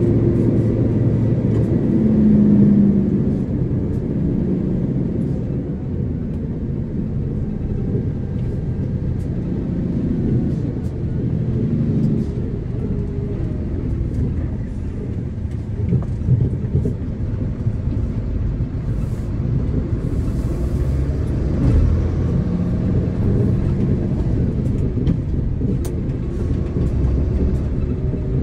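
Engine and road noise of a moving vehicle, heard from inside: a steady low drone whose engine note rises and falls a little as it drives.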